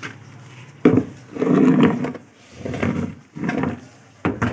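Handling noise from dismantling a front-loading washing machine: a sharp knock about a second in, then several bursts of clattering and scraping as the outer tub and its parts are worked loose.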